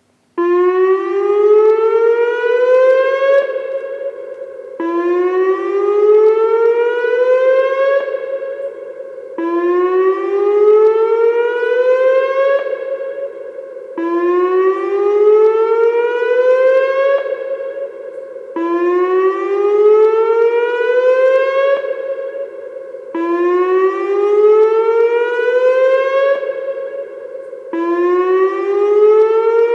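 Whelen WPS-2905 electronic outdoor warning siren sounding its whoop tone during a siren test. It plays seven rising sweeps, one about every four and a half seconds, each climbing for about three seconds and then holding its top note. It starts about half a second in.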